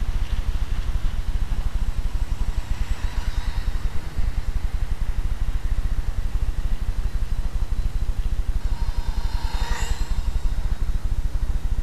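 Steady low rumble on the microphone throughout, with the small electric motor and propeller of a Parkzone UM Cub micro RC plane whining faintly. The whine grows louder and then falls away as the plane passes close overhead about ten seconds in.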